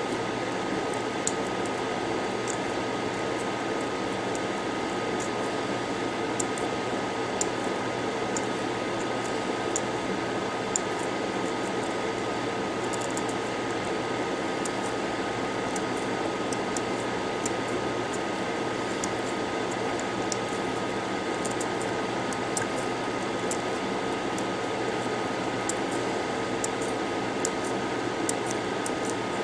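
Steady whir of an electric fan or blower with a thin constant tone, and faint irregular ticks of a tool scraping black coating off a small circuit board part.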